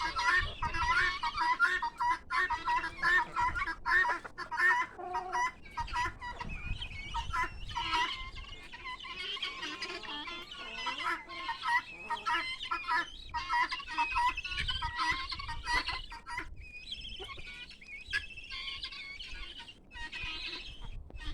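A flock of guinea fowl calling: harsh, short cries repeated rapidly and overlapping, thinning out to scattered calls in the last few seconds.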